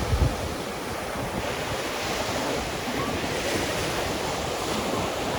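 Surf washing onto a beach, a steady rush, with wind buffeting the microphone in a short low thump at the very start.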